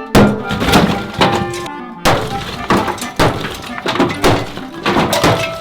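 Repeated blows knocking down a wall of thin terracotta bricks and plaster, with pieces cracking and falling, about two impacts a second, over background music.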